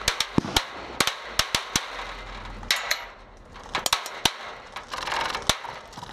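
Scattered airsoft gunfire: a dozen or more sharp, irregular snapping shots, some close and loud, others fainter.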